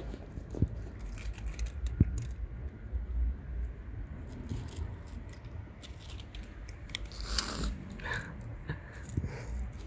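Cats crunching dry kibble: quick, irregular little crunches and clicks over a low background rumble, with a brief louder rustle about seven seconds in.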